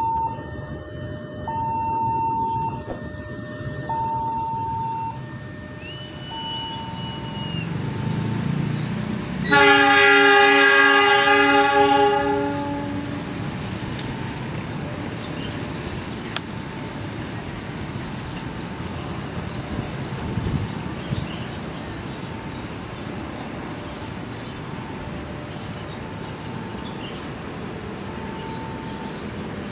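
Two-tone electronic warning signal of a railway level crossing beeping, then about three seconds in the middle a long blast of a diesel locomotive's horn as the train approaches. After that comes the steady rumble of the passing train, with the crossing signal still beeping faintly.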